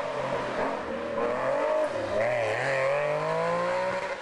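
Porsche 911 GT race car's flat-six engine accelerating out of a hairpin, its pitch climbing, with a short dip about halfway through before it climbs again.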